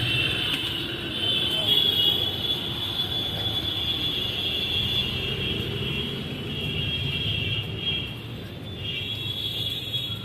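Busy city street ambience: traffic rumbling steadily, with a continuous high-pitched drone over it.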